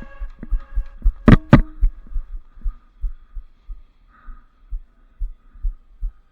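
Heartbeat sound effect: low thudding pulses repeating about twice a second over a faint steady hum, with two loud sharp cracks in quick succession a little over a second in.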